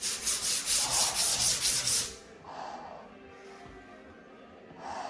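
Sanding dried drywall joint compound: a loud rasping rub in quick back-and-forth strokes, about three a second, which stops about two seconds in, followed by a few fainter scuffs.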